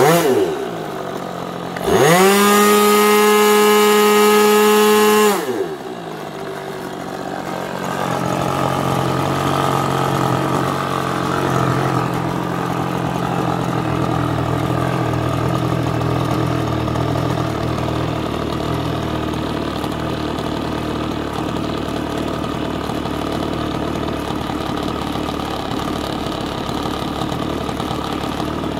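OS 25FX two-stroke glow engine on a model airplane, swinging a 9x6 propeller. Its pitch falls in the first second or so; about two seconds in it is opened up to full throttle, a loud, steady, high-pitched run of about three seconds, then drops back to a steady idle.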